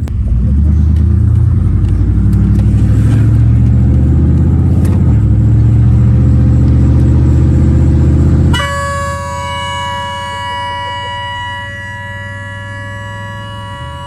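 A truck-style air horn fitted to a car blasts long and loud, deep-toned at first. About eight and a half seconds in the sound changes abruptly to a steady chord of several higher horn notes, which holds to the end.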